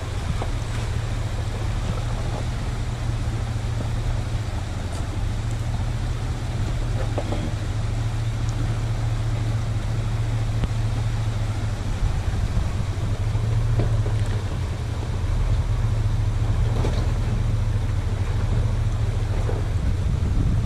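Engine of a lifted 1990 Chevy half-ton Z71 pickup on 40-inch tires running at low speed as the truck crawls over rocks, a steady low sound that grows a little louder toward the end.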